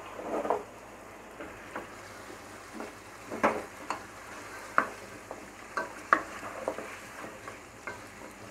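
Wooden spatula stirring and turning chunks of beef in a coated pot, with irregular scrapes and knocks against the pan. Under them is a faint steady sizzle of the meat frying in its spiced oil and the little water it has released.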